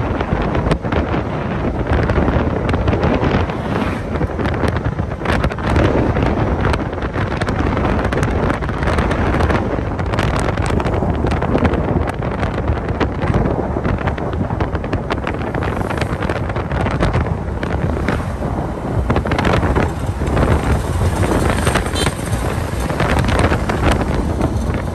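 Wind buffeting the microphone from a moving vehicle, in irregular gusts over steady road and engine noise.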